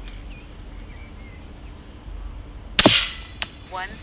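A single shot from an FX Airguns Panthera 700 PCP air rifle in .22: one sharp crack about three seconds in, with a short ring-out. A brief chirping sound follows near the end.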